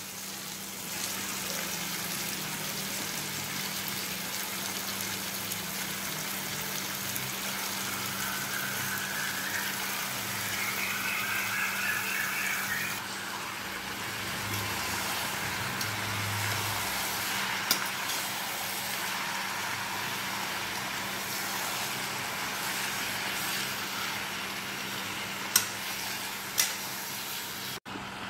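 Raw chicken pieces sizzling in hot oil with onions and tomatoes in a kadai, a steady hiss, with a steady low hum underneath. The metal spatula stirs through the pan and taps sharply against it a few times in the second half.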